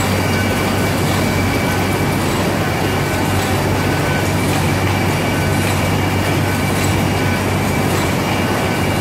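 Kraft paper bag making machine running steadily: a dense, rapid mechanical clatter over a low hum, with a faint high whine.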